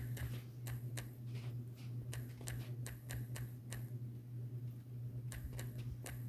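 Typing on a smartphone's on-screen keyboard: a run of quick, irregular key-press clicks over a steady low hum. The clicks pause about four seconds in, then a few more come near the end.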